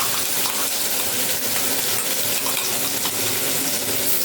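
Ground onion, chilli and garlic paste frying in hot oil in a pan: a steady sizzling hiss with faint crackles.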